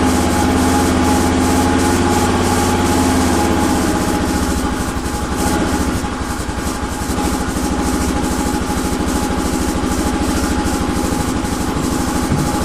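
Honda XL500S single-cylinder four-stroke motorcycle engine idling on its original exhaust, just started after the fuel valve was found turned off. The idle wavers and dips briefly about five seconds in.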